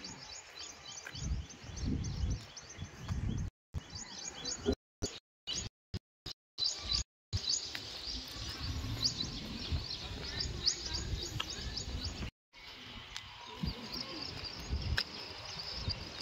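Small birds chirping over gusty wind rumble on the microphone. The sound cuts out completely several times in brief gaps, a cluster of them a few seconds in and once more later.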